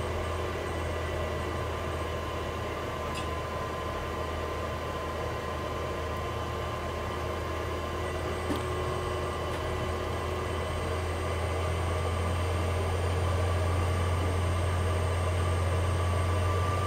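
Steady mechanical hum of a hot water tank heater running while hot water is being drawn in the house: a strong low drone with faint steady higher tones, growing a little louder over the last several seconds.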